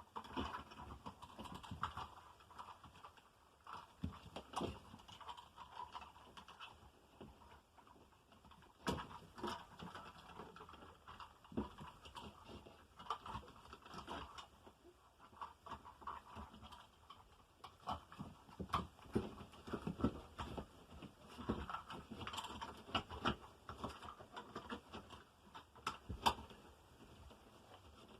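Handling noise of hands working with electrical cable and tools: irregular small clicks, taps and rustling, with a few sharper knocks.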